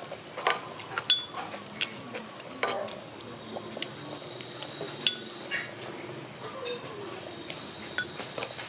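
Metal spoon clinking and scraping against a clay pot and a small bowl as soup is ladled out: scattered sharp clinks, the loudest a little after a second in and about five seconds in.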